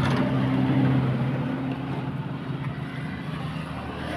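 A motor vehicle engine running steadily with a low hum, loudest about a second in and then slowly fading.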